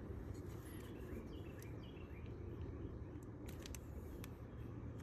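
Faint steady background noise with a low hum, small bird-like chirps in the first half, and a few light clicks near the end.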